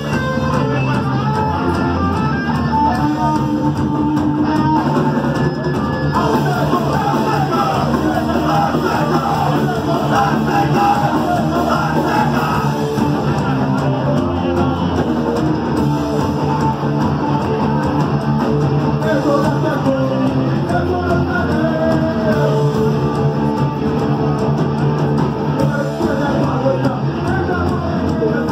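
Punk rock band playing live, with loud electric guitars driving a full band sound, heard from among the audience.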